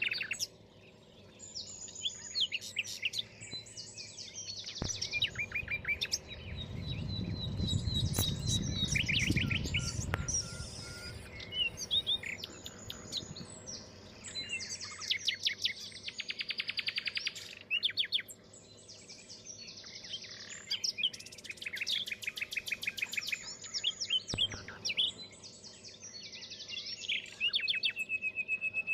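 Several small birds chirping and calling over one another, with many short chirps and fast rattling trills throughout. About six seconds in, a low rumbling noise rises for several seconds under the calls, then fades.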